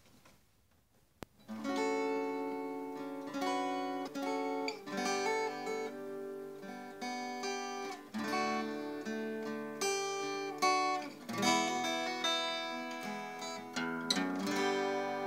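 Acoustic guitar playing the instrumental introduction to a song, ringing chords and picked notes, starting about a second and a half in after a short click.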